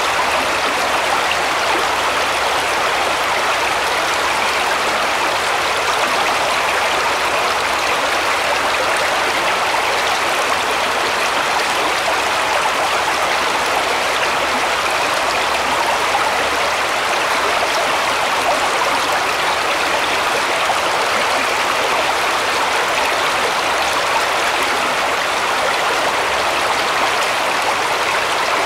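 Shallow woodland stream running over stones, a steady rushing and babbling of water.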